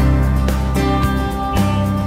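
Background music: a guitar-led track over sustained bass notes and a steady beat.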